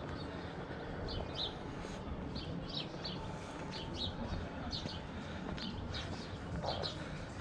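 Small birds chirping, short high calls scattered throughout, several in quick pairs, over steady low background noise.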